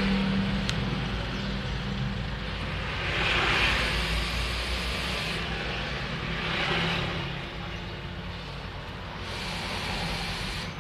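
Vaping on a Tesla Terminator 90-watt mod: breathy hisses of air drawn through the dripping atomizer and of vapour blown out, in several surges of a second or two. A steady low background rumble runs under them.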